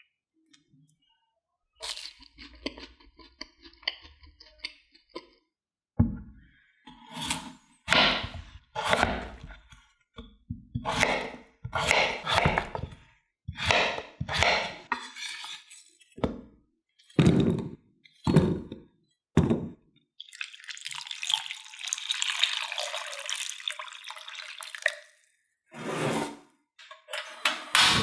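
Kitchen preparation sounds with potatoes and water: light clicking, then a run of separate knocks and splashes about a second apart. About twenty seconds in, water pours or runs steadily for several seconds, followed by two more knocks.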